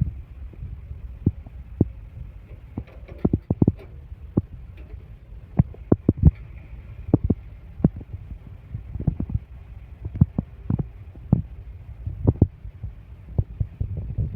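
Heavy earth-moving machinery running with a steady low rumble, with irregular sharp knocks and clunks every second or so.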